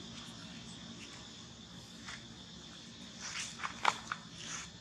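Steady high-pitched drone of insects, with a short cluster of sharp clicks and rustles about three to four seconds in, the loudest near the four-second mark.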